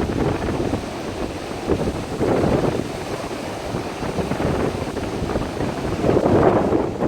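Sea waves surging and washing up a beach, swelling about two and a half seconds in and again near the end, with wind rumbling on the microphone.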